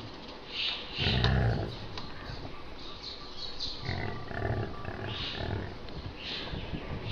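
Cow groaning in low, rough bursts, about a second in and again around four to five seconds in. It is a distress sound that is put down to the itching and irritation of a tick infestation.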